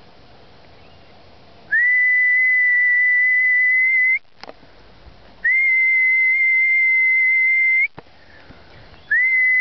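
A whistle blown in three long, steady, high-pitched blasts, each about two and a half seconds with a short gap between, calling a dog back.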